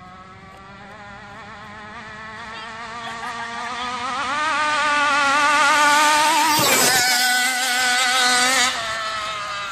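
FG Baja large-scale RC car's two-stroke gas engine running as the car comes up the road, growing steadily louder. It revs higher about four seconds in, peaks, dips in pitch near seven seconds, then the throttle comes off abruptly near the end.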